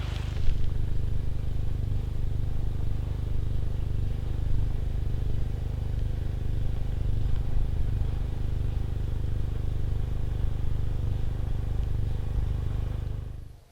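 Steady low rumble of a vehicle driving, engine and road noise, cutting off abruptly near the end.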